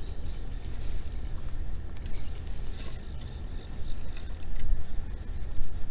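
Outdoor ambience: a low, uneven rumble of wind on the microphone, with an insect singing a thin, steady high-pitched note that breaks off shortly before the end.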